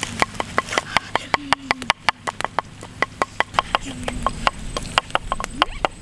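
Wood fire crackling: a fast, uneven run of sharp pops and snaps, several a second.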